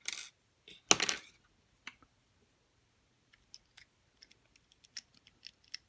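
Metal lock-picking rakes and a lock cylinder being handled: a short metallic clatter about a second in, then a run of light, irregular clicks as a rake works at the lock's pins.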